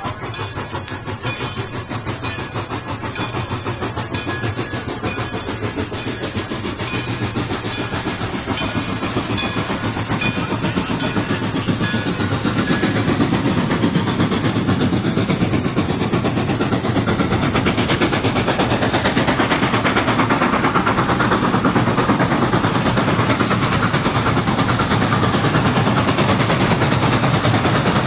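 Frisco 1630, a 2-10-0 steam locomotive, approaching along the track, its running sound growing steadily louder and rising most steeply about halfway through.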